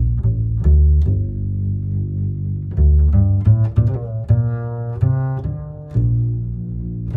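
Background music: a low plucked bass line with held notes, and a brighter melody line about midway through.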